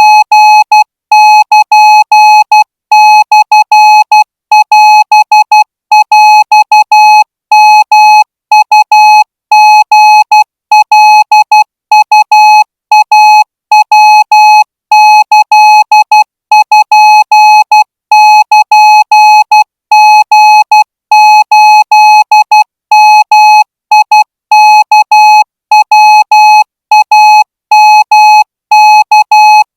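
Morse code sent as a single steady tone, keyed on and off in a continuous run of dots and dashes. These are the code groups of a Morse receiving test.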